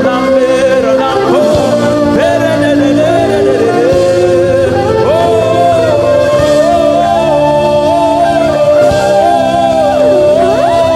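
Live church worship music: sustained chords from the band under a melody line that slides up and down.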